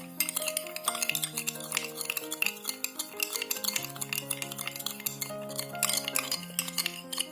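A metal spoon stirring sugar into bilimbi juice in a glass, clinking rapidly and continuously against the glass, over background music.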